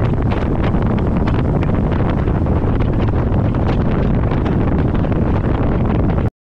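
Heavy wind buffeting the microphone on a fishing boat running fast across open water, with the motor and the rush of the wake beneath it. It cuts off suddenly near the end.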